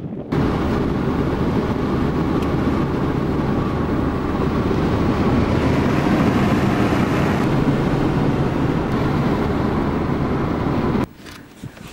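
Steady engine and road noise of a car driving at speed, heard from inside the cabin. It starts abruptly just after the start and cuts off suddenly about a second before the end.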